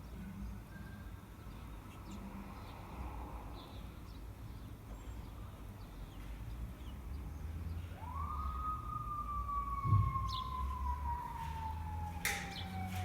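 A distant siren wails once. It starts about two-thirds of the way in, rises quickly, then falls slowly in pitch, over a low background rumble. A dull thump sounds about two seconds after the wail begins.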